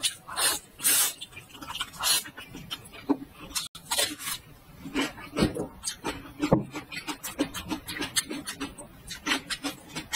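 Close-miked slurping of noodles, two long hissy draws in the first second or so, then steady wet chewing with many short crackly clicks.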